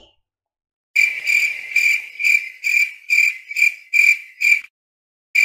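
Cricket chirping sound effect: short, evenly spaced chirps about twice a second, starting after a second of dead silence and cutting off suddenly near the end.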